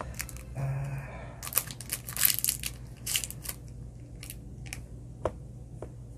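Makeup products and tools being handled: a stretch of rustling and scraping, then several separate light clicks and taps.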